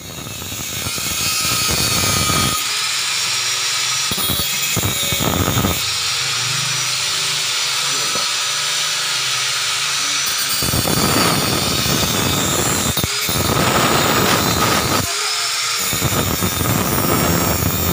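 Handheld electric power tool working on a motorcycle seat cowl: a loud steady high hiss and whine, with a deeper grinding sound cutting in and out several times as the tool bears on the part.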